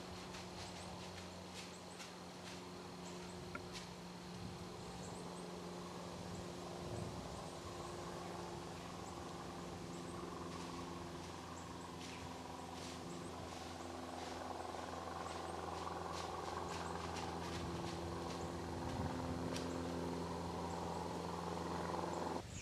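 A steady low droning hum, rising somewhat in the second half and cutting off abruptly near the end. Scattered light clicks and crackles of dry leaves are heard as a whitetail deer walks through the leaf litter.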